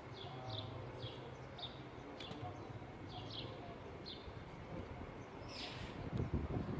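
A small bird chirping faintly and repeatedly, short high chirps over a low steady hum, then a burst of rustling handling noise near the end.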